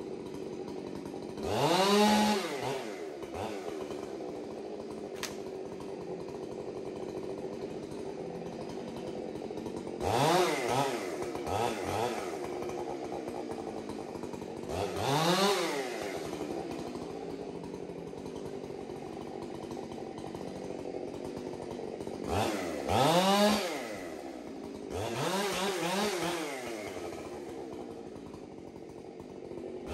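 Chainsaw engine running at idle and revved up several times in short bursts, each a quick rise and fall in pitch, some in quick pairs.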